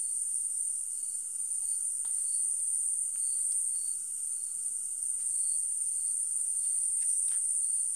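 Crickets chirring in a steady, high, continuous night chorus. A fainter insect call pulses beneath it, and a few faint clicks come through.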